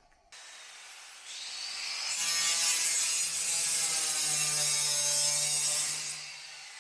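A power cutting tool cutting out a sheet-metal bracket. It builds up about a second in, is loud from about two to six seconds in, then stops, leaving a steady hiss that starts just before the cut and carries on after it.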